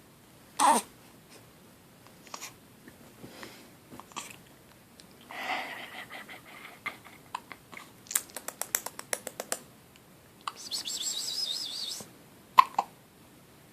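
A baby hiccuping: short, sharp hiccups about a second in and again near the end. Between them come soft clicks and rustling, a quick run of clicks and a brief high-pitched wavering squeak.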